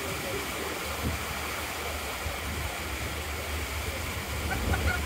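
Steady rush of lake water, with waves and wake washing, over a low rumble.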